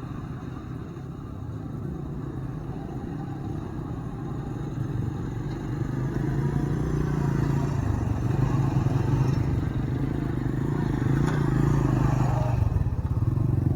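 Zongshen RX3 Cyclone motorcycle's single-cylinder engine running while being ridden, getting louder about six seconds in as it pulls harder.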